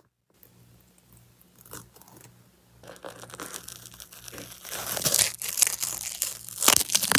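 Blue painter's tape being peeled off a painted leather sneaker: a crackling, tearing sound, faint and sparse at first, growing denser and louder from about three seconds in.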